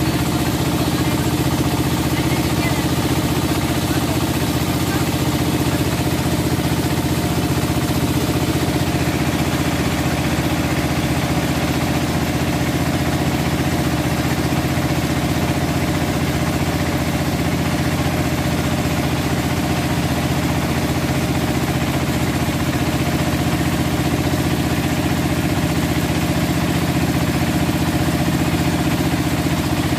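Engine of a motorised wooden river boat running at a steady, even pitch while under way, with the rush of water from the wake along the hull.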